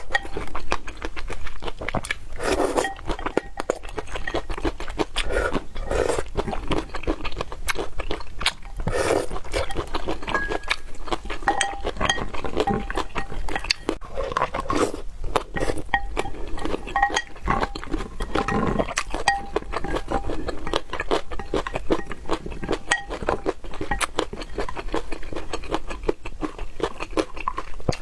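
Close-miked eating sounds: chewing and mouthfuls of food, with utensils clicking and clinking against dishes throughout.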